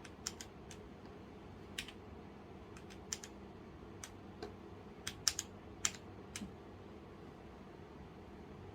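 Keys of a Womier K66 mechanical keyboard with Gateron Brown switches pressed about a dozen times in separate clicks over the first six and a half seconds, then no more presses. A faint low steady hum lies beneath.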